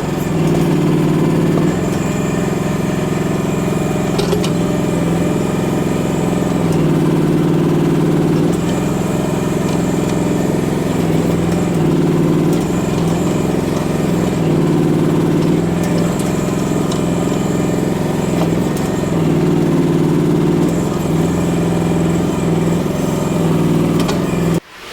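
Chinese micro excavator engine running steadily while digging, its pitch shifting every few seconds as the load changes.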